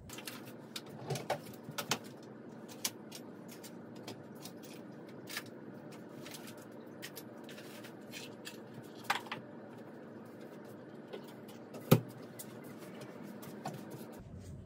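Small objects clicking and clattering on a desk as nail supplies are handled and put away, with one sharper knock about twelve seconds in. A steady low room hum lies underneath.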